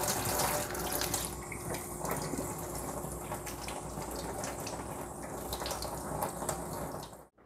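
Water running from a tap into a sink, splashing steadily with small knocks, then cutting off suddenly near the end.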